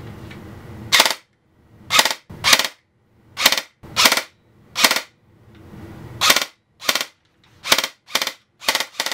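Upgraded G&G CM16 SRXL airsoft electric gun, with an M120 spring and a KWA high-torque motor on an 11.1 V LiPo, firing in three-round burst mode. About a dozen short bursts, each a quick rattle of shots, are fired roughly once a second and come faster near the end.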